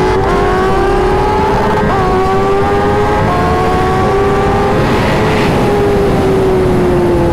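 Yamaha sportbike's engine at high revs under hard acceleration, shifting up through the gears, with wind rush. The engine note falls slowly over the last couple of seconds.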